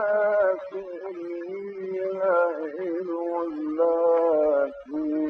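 Male Quran reciter chanting in the melodic tajweed style, drawing out long ornamented notes that waver and turn. There are brief breaths between phrases.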